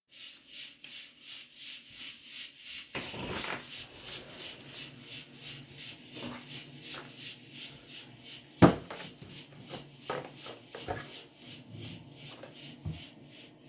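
Household objects being handled: scattered knocks, rubs and clicks, with one loud thump about halfway through. Under them runs a faint, even ticking of about three pulses a second.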